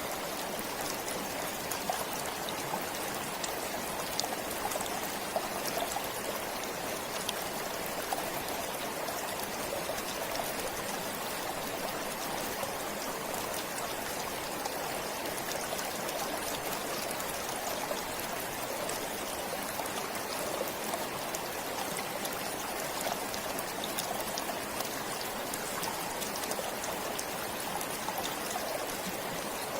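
A forest stream flowing in a steady, unbroken rush of water, with many small trickles and splashes flecked through it.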